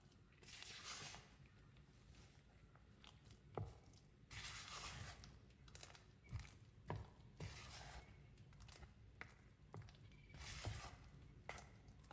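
Silicone spatula stirring and scraping a thick sour cream and powdered sugar filling in a bowl: faint soft swishing strokes with a few light taps against the bowl.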